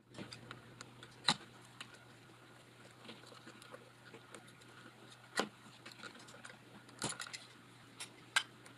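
Scattered clicks and light rustling as sheathed electrical cable is worked by hand with a plastic-handled tool, with four sharper clicks spread through it. A faint steady hum runs underneath.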